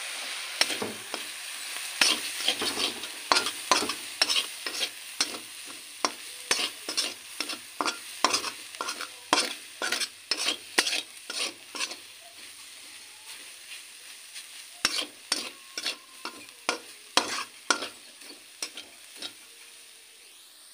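Steel spatula scraping and knocking against an iron kadhai in quick, irregular strokes as shredded vegetables are stir-fried, over a frying sizzle that fades. The strokes pause for a few seconds past the middle, then resume.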